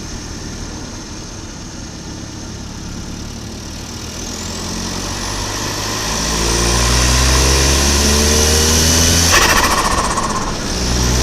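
Volvo 940 Turbo's turbocharged B230FT four-cylinder running steadily, then building boost with a rising turbo whistle and louder engine note. About nine seconds in the throttle is lifted and the turbo flutters, a rapid chatter of compressor surge, before the engine pulls again near the end.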